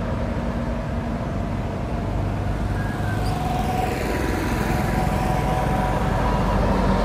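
Road traffic with a minibus engine approaching, a steady low rumble that grows gradually louder towards the end.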